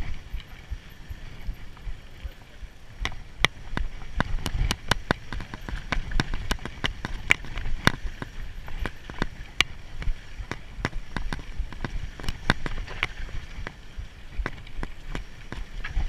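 Mountain bike riding down a rough dirt trail: frequent sharp, irregular clicks and rattles from the bike jolting over bumps, over a steady low rumble.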